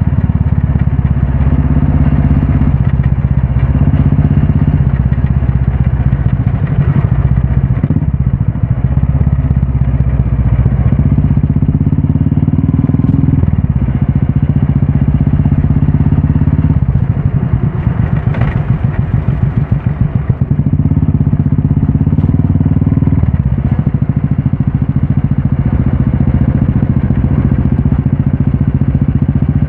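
Royal Enfield Classic 350's single-cylinder engine running through a Red Rooster stainless-steel aftermarket exhaust while being ridden. The exhaust note steps up and down in pitch several times, and about two-thirds of the way through it drops into a slower, uneven burble for a few seconds.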